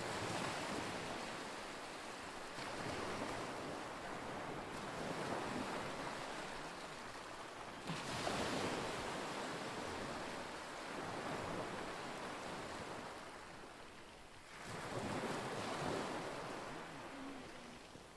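Waves washing against a lake shore, with wind. The sound swells and fades every few seconds, louder about eight seconds in and again about fifteen seconds in.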